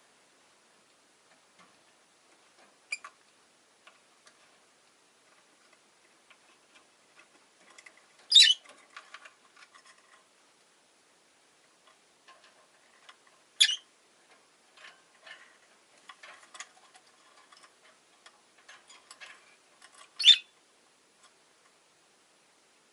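Rosy-faced lovebird giving short, sharp, shrill calls: one softer call about three seconds in, then three loud ones spread over the rest. Faint ticking and clicking fills the gaps between the calls.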